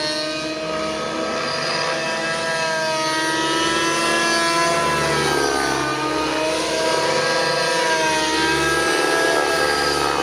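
RC helicopter's O.S. MAX-55HZ two-stroke glow engine and rotor running hard in aerobatic flight. Its pitch dips and rises several times as the throttle and load change and the helicopter passes.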